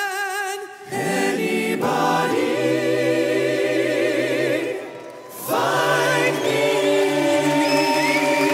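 A male vocal group singing in close harmony. One voice with a wide vibrato gives way about a second in to full held chords; there is a brief dip near the middle before a new chord swells in.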